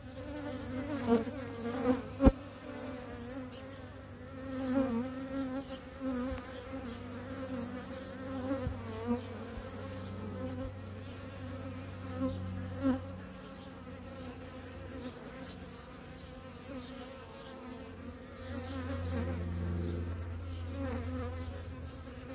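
A crowd of honeybee workers buzzing steadily at close range, with one sharp click a little over two seconds in.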